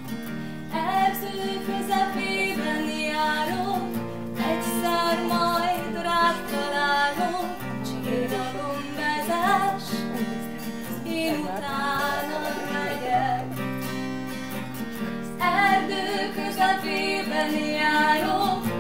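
Acoustic guitar accompanying a woman singing a song. The guitar plays alone for the first moment, then the voice comes in about a second in and carries on over it.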